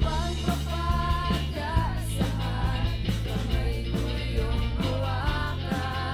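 A ballad sung in Tagalog by a solo voice over a band accompaniment with a steady beat.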